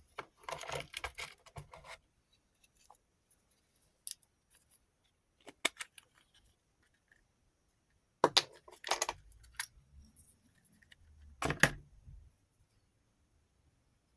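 Small rotary tool accessories and their plastic case being handled: short metallic rattles and clicks in a few separate clusters, the loudest near the start and about three-quarters of the way through.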